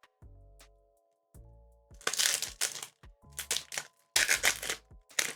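Foil booster-pack wrapper crinkling in several loud bursts from about two seconds in, over soft background music.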